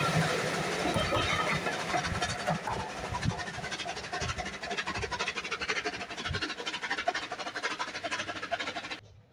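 Coaches of a steam-hauled passenger train passing and drawing away, their wheels clattering on the track in a rapid run of clicks over a rushing noise that fades steadily as the train recedes. It cuts off abruptly near the end.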